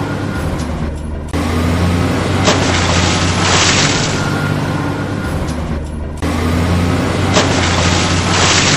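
Looped vehicle engine sound with a steady low hum and bright hissing surges, the same stretch repeating about every five seconds.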